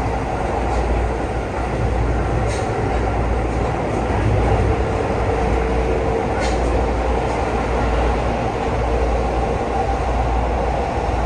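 Keihan 3000 series electric train running at speed, heard from the driver's cab: a steady low rumble and running noise in the tunnel, with a steady motor tone for a few seconds midway and two sharp clicks from the track.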